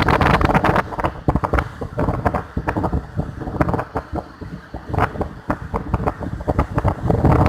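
Wind buffeting the microphone in uneven gusts, with rumbling and crackling, over a faint steady hum.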